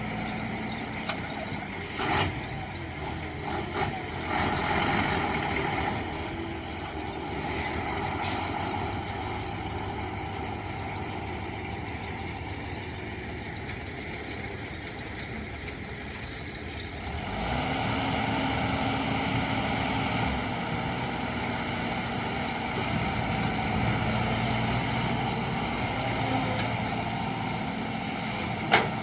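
Heavy diesel construction machine engine running steadily. About two thirds of the way through, its note shifts higher and grows a little louder. There is a single sharp clank near the end.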